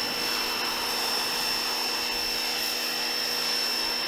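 Portland 1750 electric pressure washer running steadily under load, its motor and pump giving a steady high whine over the hiss of the water jet spraying against a car door.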